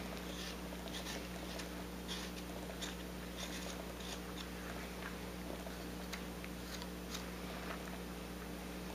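Carving knife paring small shavings off a wooden carving to bevel its edges: faint, short scraping cuts, a few each second, over a steady low electrical hum.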